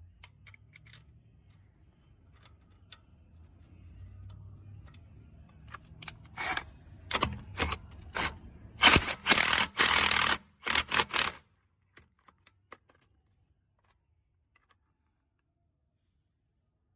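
Cordless impact wrench run in short trigger bursts, about six rattling bursts of its hammer mechanism over roughly five seconds, after a faint low hum.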